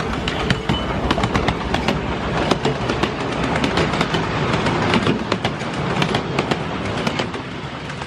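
Miniature passenger train passing close by: the small steam locomotive goes past, then its carriages follow, wheels clicking rapidly and irregularly over the rails. The sound fades near the end as the train moves away.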